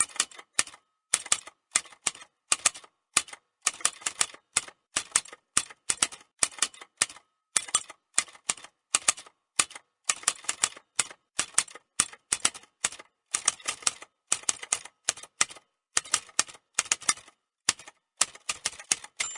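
Typewriter keys clacking in quick clusters of strokes separated by brief pauses, like a steady stretch of typing.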